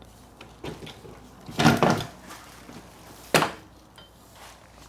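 Knocks and clatter from handling an aftermarket van window unit: a small knock, then a loud cluster of clattering knocks about a second and a half in, and one sharp knock about two seconds later.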